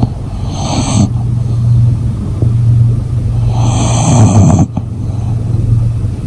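English bulldog snoring in her sleep: two loud snoring breaths about three seconds apart, one just after the start and one near four seconds in, over a steady low drone.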